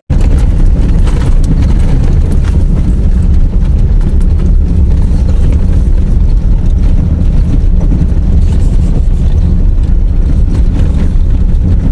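Vehicle driving on a rough unpaved logging road: a loud, steady low rumble with constant irregular knocking and rattling from the bumps. It starts abruptly.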